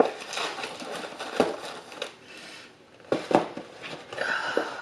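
Rustling and crinkling of takeout packaging, with a few sharp clacks, as fried chicken and biscuits are moved onto small plates.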